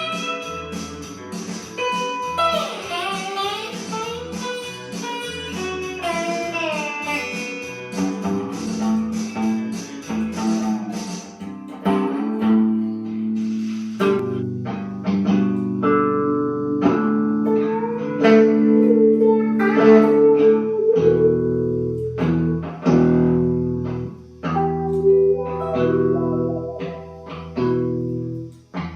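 Blues played on guitar: a lead line with string bends in the first several seconds, then held chords over a bass line.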